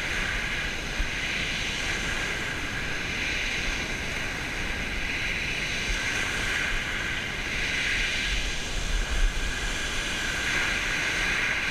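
Small waves breaking and washing on a shingle beach, with wind rumbling on the microphone; the wash swells several times as waves come in.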